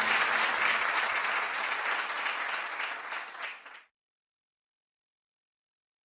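Audience applause that thins out and cuts off suddenly about four seconds in, leaving dead silence.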